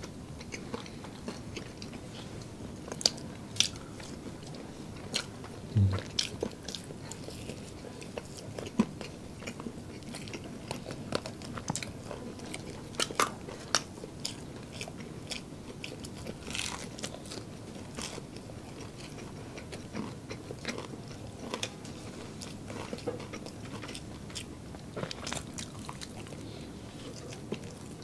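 Eating sounds: biting into and chewing crispy fried chicken and chicken nuggets, with irregular sharp crunches of the breading scattered throughout.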